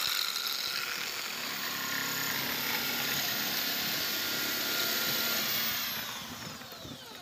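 Corded DeWalt drill running at speed, turning a eucalyptus stick through a dowel-making cutter on a first rough pass at the 16 mm hole. It gives a steady whine that starts abruptly and winds down with falling pitch near the end.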